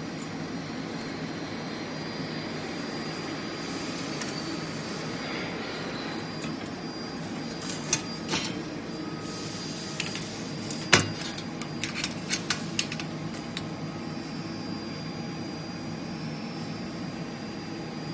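Steady workshop hum, with a cluster of sharp metal clicks and knocks between about 8 and 13 seconds in, the loudest about 11 seconds in, as welded insulation pins are handled and bent on a steel frame.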